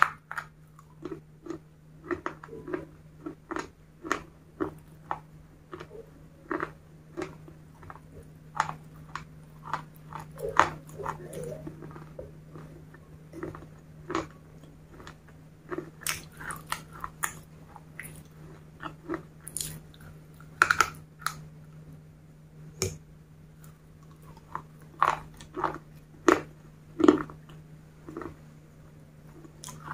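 Biting and chewing crunchy white sticks dipped in chocolate sauce: irregular sharp crunches and crackles, one every second or so, over a steady low hum.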